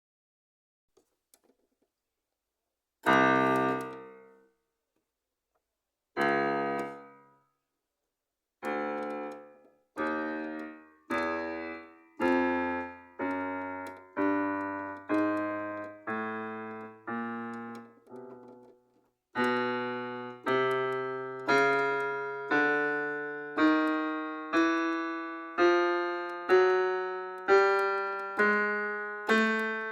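Stage piano sound playing a series of separate chords, each struck and left to fade. Two chords a few seconds apart open it, then a steady run follows at about one chord a second, quickening to a little faster than that about two-thirds of the way through.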